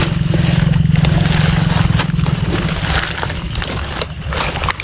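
Dry leaf litter and wet mud crunching and scraping as a hand digs into them, over a low pulsing hum that fades out about halfway through.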